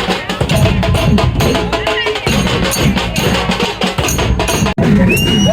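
Loud percussion-heavy procession music with rapid, dense drumming, briefly cutting out near the end.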